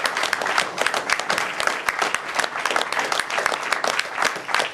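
An audience applauding: many people clapping steadily and rapidly.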